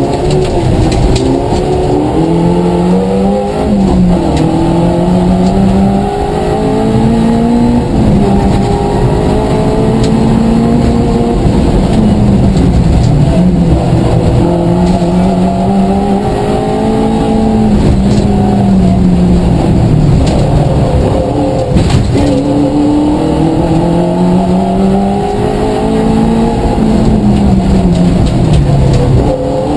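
Vauxhall Astra Mk2 1400's four-cylinder engine heard from inside the cabin at rally pace, its pitch climbing through each gear and dropping at each change or lift, over a constant rush of tyre and road noise. A single sharp knock about two-thirds of the way through.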